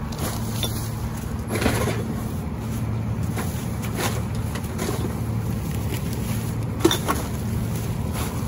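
Rear-loader garbage truck running at idle: a steady low hum, with a few short knocks, the sharpest about seven seconds in.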